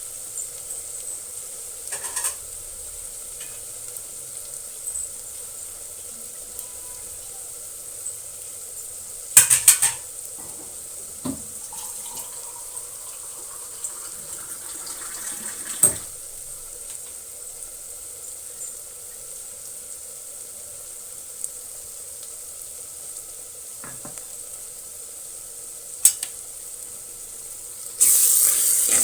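Onion and tomato frying in an earthenware pot, a steady high sizzle broken by a few sharp knocks of a spoon against the pot. About a second before the end, louder stirring and scraping begin.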